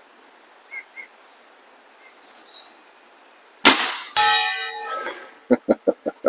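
A .30 calibre Hatsan Model 135 gas-ram break-barrel air rifle fires with a sharp crack about three and a half seconds in. About half a second later its heavy pellet strikes a metal bell target at 60 yards, which clangs and rings for about a second; the gap is the pellet's long flight time.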